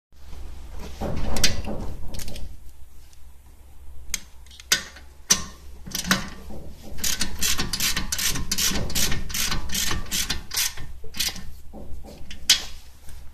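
Ratchet wrench clicking as a brake caliper bolt is run in by hand, with a few scattered metallic clicks and knocks at first. From about seven seconds in it settles into quick, even back-and-forth strokes, about three a second, for some four seconds.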